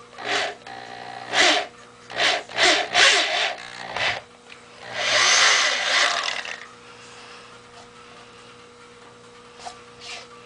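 Electric drill with a 1/4-inch bit boring through the hollow, rubber-overmolded synthetic stock of a Remington 700 rifle. It runs in several short bursts over the first four seconds, then in one longer run of about a second and a half, and then stops.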